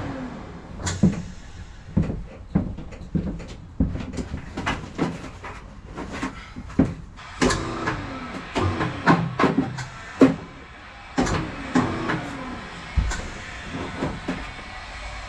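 Irregular metallic clanks and knocks as sheet aluminum gutter coil is handled and fed into a gutter roll-forming machine, several with a brief wavering ring.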